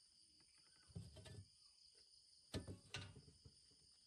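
Steady high chorus of night insects, with a few soft knocks and rustles about a second in and two sharper knocks around two and a half and three seconds in.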